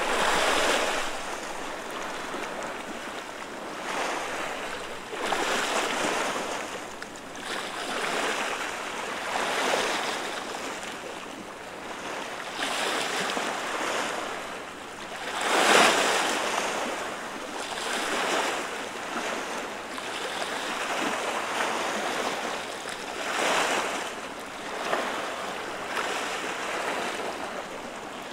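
Small sea waves lapping and washing over the flat rocks of a breakwater, a hissing wash that swells and fades every two seconds or so, the loudest wash a little past the middle.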